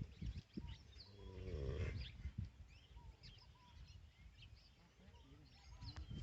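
A sleeping bull snoring: one drawn-out, rough breath about a second in, with small birds chirping throughout.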